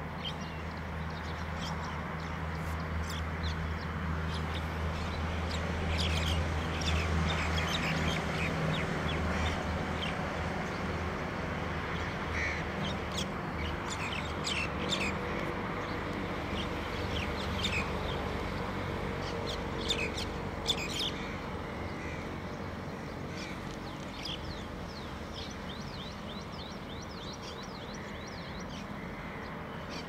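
A flock of birds calling, many short calls overlapping and scattered throughout, over a low steady hum that eases after about eight seconds.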